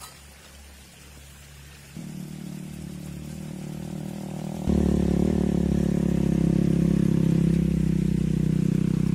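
A motor engine running steadily. It comes in suddenly about two seconds in and gets much louder about halfway through.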